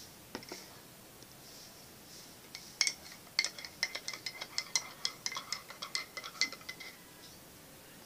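A spoon stirring in a cup, clinking quickly and repeatedly against its sides for about four seconds, starting about three seconds in.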